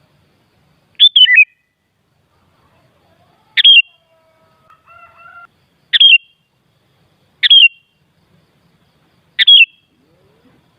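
Sooty-headed bulbul calling: five short, sharp, down-slurred chirps about every two seconds, with a faint steady tone in between, about halfway through. This is a lure recording meant to provoke caged bulbuls into singing.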